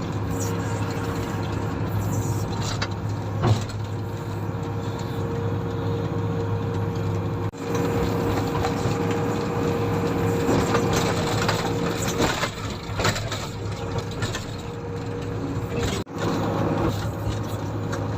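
Komatsu motor grader's diesel engine running steadily while grading, with bursts of rattling and scraping noise around the middle.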